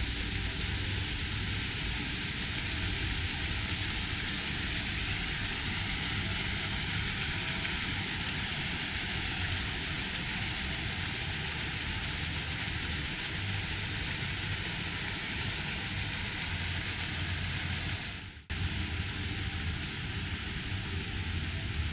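Steady outdoor background noise with a low rumble underneath. The sound drops out abruptly for a moment about 18 seconds in, then returns the same.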